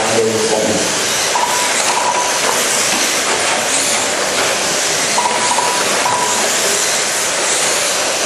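Radio-controlled race cars running laps on an indoor track: a steady, loud whirring hiss of motors and tyres.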